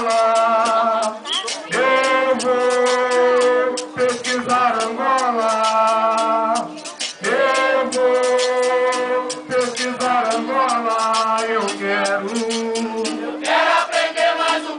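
Capoeira music: a chorus of voices singing long held notes in phrases over a fast, steady percussion beat.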